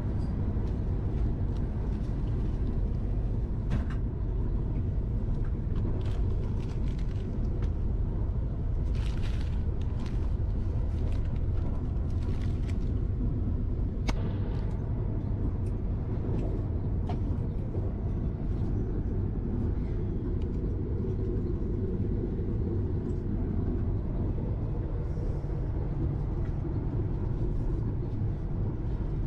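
Steady low rumble of the Vande Bharat Express (Train 18), an engineless electric multiple-unit train, running at speed, heard inside the passenger coach. A few light clicks and rustles come through around the middle.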